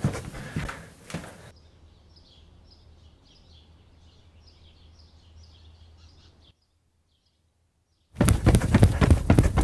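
Loud close-up noise for about a second and a half, then faint birds chirping over a low hum for about five seconds. The sound cuts out completely, and near the end loud running footsteps start.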